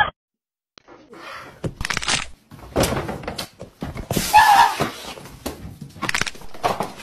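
A string of knocks and clicks from a door and its latch being handled in a small room, after a moment of silence, with a louder burst about four seconds in.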